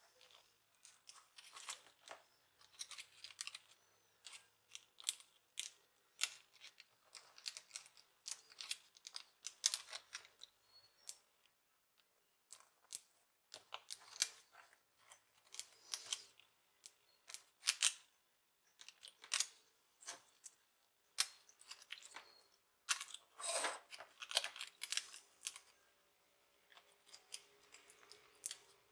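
Irregular small clicks, crinkles and scrapes of hands working on a laptop's plastic display casing and its cables, with a short pause partway through.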